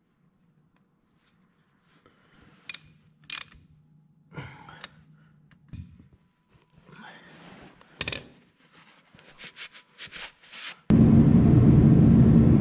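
Metal clicks and knocks from a ratchet tightening the drain plug on an excavator's final drive, ending in a quick run of ratchet clicks. Just before the end, a loud steady diesel engine running starts abruptly.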